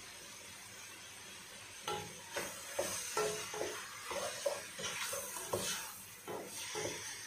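Wooden spoon stirring shrimp and tomato in a granite-coated pot, scraping and knocking against the pot in an irregular run that starts about two seconds in, over a faint steady hiss.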